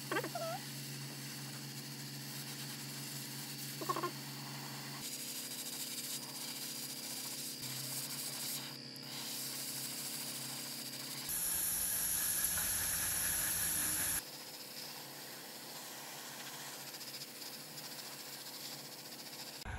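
Airbrush compressor humming steadily while the airbrush sprays paint with a hiss. The hiss is loudest for about three seconds a little past midway. Brief short squeaks come near the start and about four seconds in.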